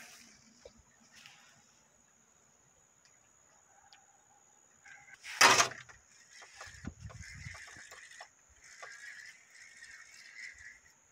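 Spinning reel being cranked to reel in a hooked fish, a rough winding noise in short runs from about six seconds in, just after one loud knock. A steady high insect buzz runs underneath.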